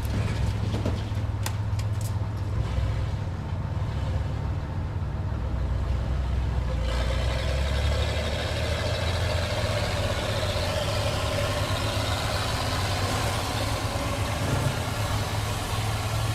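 Auto repair shop ambience: a vehicle engine idling steadily, with a few light clicks in the first couple of seconds. About seven seconds in, a steady rushing noise joins the engine.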